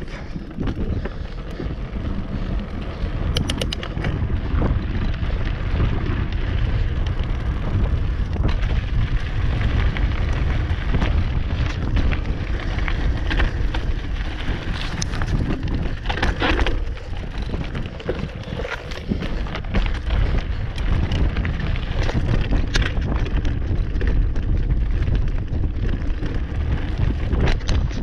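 Hardtail mountain bike ridden over cobbles and rocky dirt trail: tyres rumbling and the bike clattering over stones, with frequent sharp clicks. Heavy wind rumble on the microphone runs under it all.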